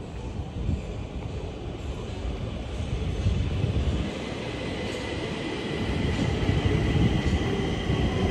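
Stockholm metro train pulling into an underground rock-cavern station: a low rumble growing louder, joined about halfway through by a steady high whine.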